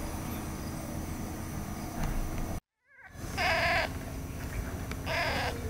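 One-day-old newborn kittens crying: two short, high-pitched mews about a second and a half apart, in the second half.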